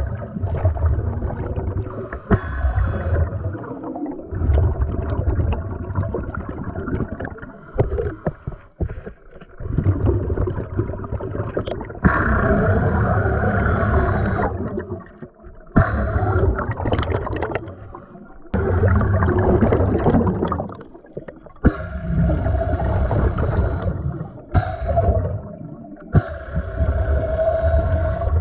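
Pneumatic air drill, run off a scuba regulator's BCD hose, running underwater in repeated bursts of a second to a few seconds as it bores into stone with an old, dull bit. Its exhaust air bubbles out around it.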